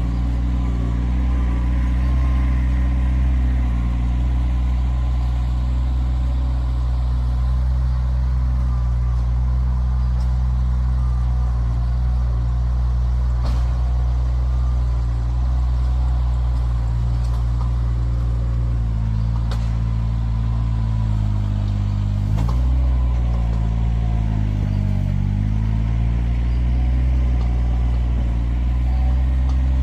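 Kioti tractor's diesel engine running steadily while working a log with the grapple. Its engine speed sags and recovers a few times in the second half as it takes load, with a few sharp clanks.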